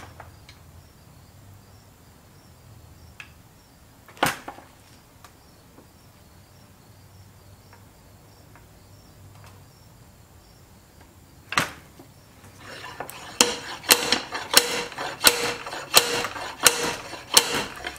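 Slide hammer threaded into a power steering rack being worked to pull a part from the housing. Two lone metal knocks come first, then near the end a steady run of ringing metal blows, about one and a half a second, as the sliding weight strikes its stop.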